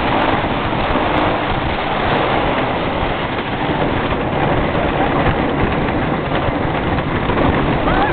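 Wooden roller coaster train rumbling and rattling along its track at speed, with wind rushing over the microphone: a loud, steady noise.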